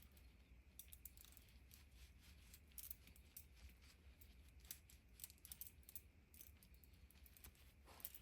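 Near silence with faint, scattered light clicks and ticks as small bike-hub parts are handled during bearing cleaning.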